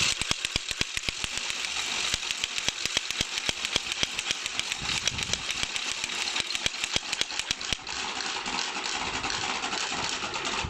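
Wooden Easter rattles (Klappern) clattering in a fast, continuous run of sharp clicks. This is the traditional call that stands in for the silenced church bells on Good Friday and Holy Saturday, announcing the time of day to the faithful.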